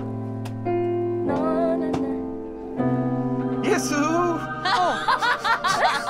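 Sustained keyboard chords, changing about every second and a half, with a voice singing a mock gospel-style line over them. Laughter near the end.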